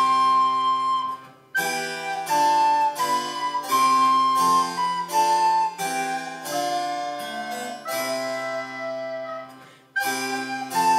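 Recorder and harpsichord playing a Renaissance galliard: the recorder carries the melody over the harpsichord's accompaniment. The music pauses briefly at the end of a phrase about a second and a half in and again near the end.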